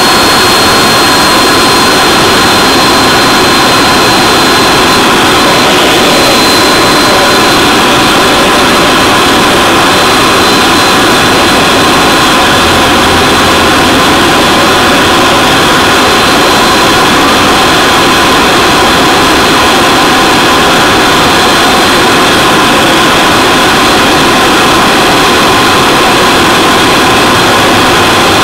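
A bike's engine running steadily and loud, an even rushing noise with a constant high-pitched whine over it.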